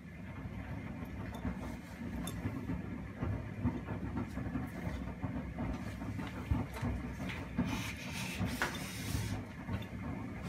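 Primus P6 commercial front-loading washing machine's drum turning, tumbling laundry in sudsy water during a 95°C boil wash: a low motor-and-drum rumble with sloshing and irregular knocks. It picks up at the start, and a brief hissing rush comes about eight seconds in.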